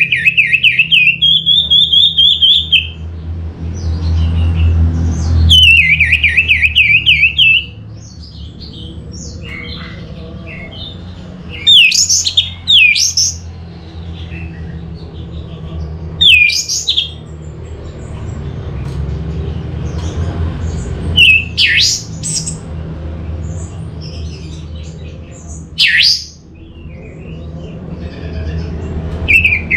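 Orange-headed thrush singing: two long, rapidly warbling trills in the first seven seconds, then a run of short, sharp whistled notes that sweep steeply up or down, a few seconds apart.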